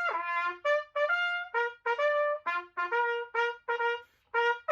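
Background music: a solo trumpet playing a melody of short, separate notes, about a dozen in all, with a brief pause near the end.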